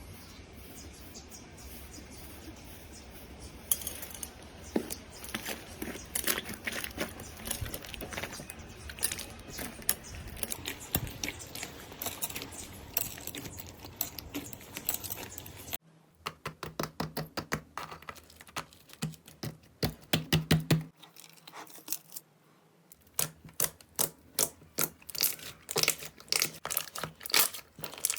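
Slime being played with, making quick crackling clicks and pops. About sixteen seconds in the sound changes to louder, more separate pops, with a short pause a few seconds later.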